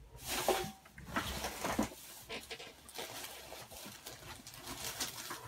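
Paper and craft supplies being handled and shuffled by hand: irregular rustling with a few soft taps.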